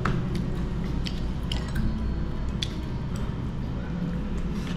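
A person chewing and biting into fried shrimp, with a few sharp clicks scattered through, over a steady low hum.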